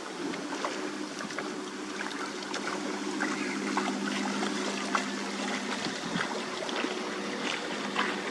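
A river cruiser's engine running steadily with an even drone, mixed with many small splashes and trickles of water.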